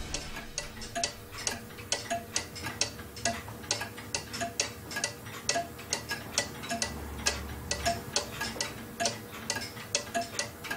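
Several weight-driven pendulum clocks ticking out of step with each other, about four ticks a second all told, some ticks louder than others.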